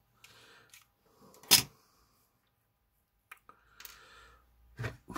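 Small hard parts being handled and set down: one sharp clack about a second and a half in, with softer clicks and rustles before and after it.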